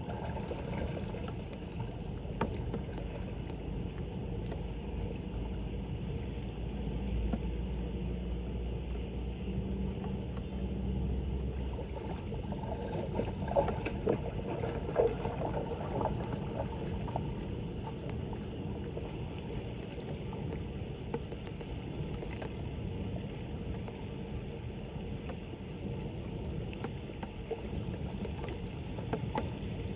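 Floodwater at a street drain splashing and flowing steadily, with a few short knocks about halfway through.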